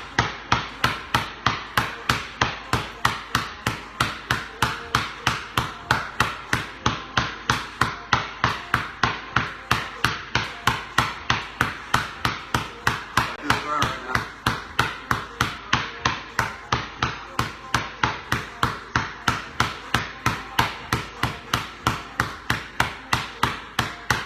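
A basketball dribbled low and continuously on a concrete floor: sharp bounces in a quick, even rhythm of about two to three a second.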